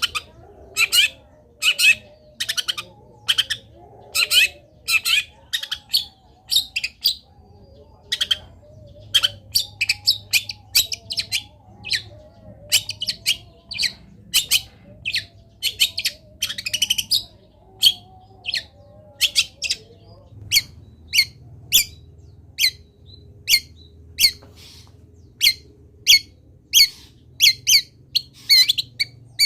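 Long-tailed shrike singing: a fast, continuous run of short, sharp, harsh notes, about one to two a second. It is a full song with mimicked phrases of other birds.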